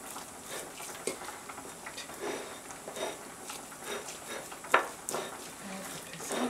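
A metal fork clinking and scraping against a ceramic bowl as mashed tofu and pumpkin are stirred together, in short irregular taps with one sharper clink about three-quarters of the way through.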